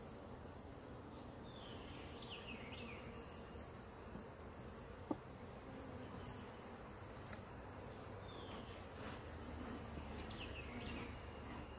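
Honeybees buzzing over an open hive, a steady low hum, with a single sharp click about five seconds in.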